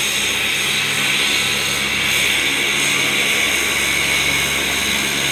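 Twin-engine turboprop airliner coming in to land, its engines giving a loud, steady high whine over a low drone.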